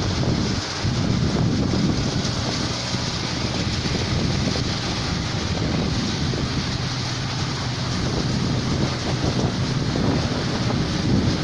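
Diesel engine of a rice combine harvester running steadily, a continuous low hum under a rushing noise.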